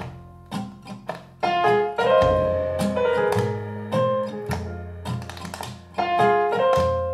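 Instrumental background music: a melody of sharply struck pitched notes, joined about two seconds in by a deep sustained bass line.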